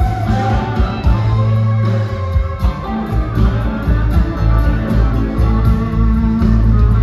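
Live rock band playing a blues: electric guitars over deep bass notes, with a steady cymbal beat from the drums.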